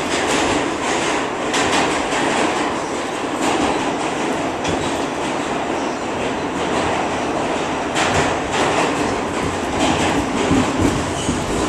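New York City subway train running at speed, heard from inside the car: a steady rumble with wheel clatter and irregular clacks over the rails.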